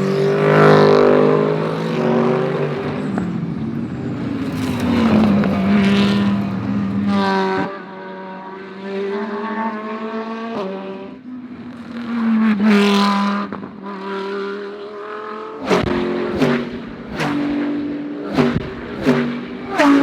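GT3 race car engines at full racing speed: several cars pass one after another, their engine notes rising and falling as they rev and change gear, with abrupt breaks and a quick series of sharp interruptions near the end.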